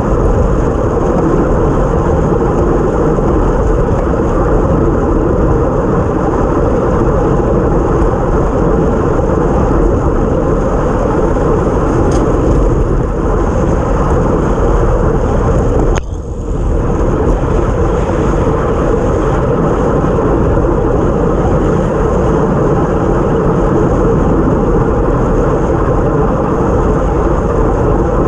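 Steady rush of wind buffeting a bike-mounted GoPro Hero Session 5 at racing speed, mixed with tyre noise on a wet road. A little past halfway there is a sharp click and the noise briefly drops.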